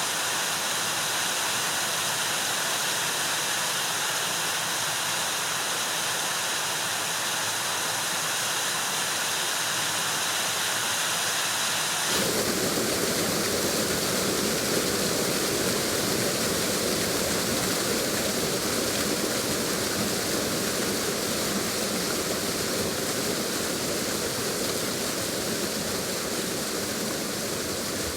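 Waterfall's rushing water, a steady hiss. About twelve seconds in it changes abruptly to a different, fuller and deeper rush of falling water.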